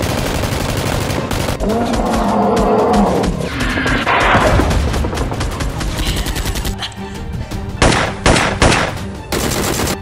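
Rapid machine-gun fire sound effects over background music, with a drawn-out growl about two seconds in and a few loud blasts near the end.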